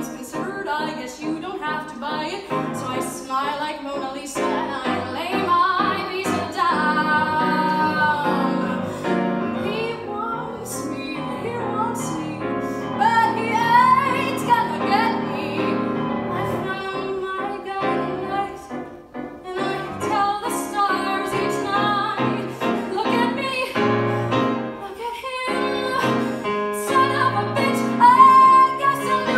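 A young woman singing a musical-theatre song solo through a microphone over piano accompaniment, holding several long notes.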